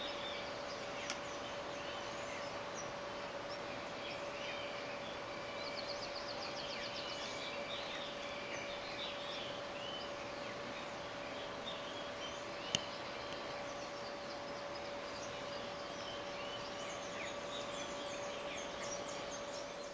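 Outdoor ambience of many birds chirping and calling, including one quick trill, over a steady hum. Two sharp clicks, one about a second in and a louder one past the middle.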